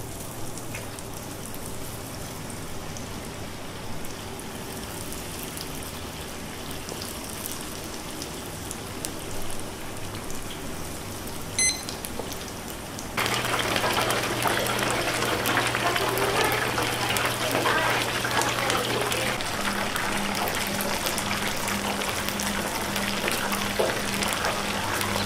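Chicken karaage pieces frying in a commercial deep fryer, the hot oil sizzling and crackling steadily as more pieces are dropped in. The sizzle gets clearly louder about halfway through, over a steady low hum.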